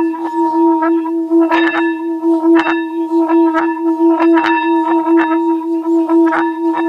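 Water-filled metal singing bowl being sung by rubbing its rim. It gives a steady ringing hum with a pulsing wobble and higher overtones, and many short crackling clicks run over it as the water on its surface dances.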